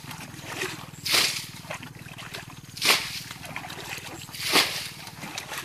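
Plastic bucket bailing water out of a shallow ditch: three splashing throws, about one every second and a half, as each bucketful is flung out.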